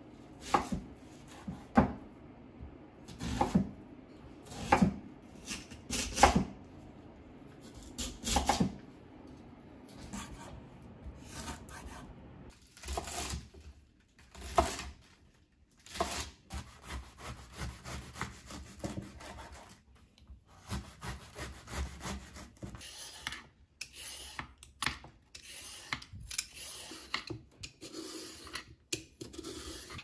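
Chef's knife cutting vegetables on a wooden cutting board. First come slow, separate cuts through an onion, the blade striking the board every second or so. After that comes quicker, lighter chopping of leafy cabbage greens.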